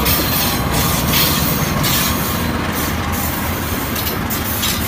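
KAI CC 206 diesel-electric locomotive passing close by, its engine running and its wheels rumbling on the rails, with a high rushing noise that swells and fades several times.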